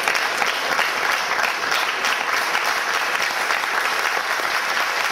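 Audience applauding steadily after a performance.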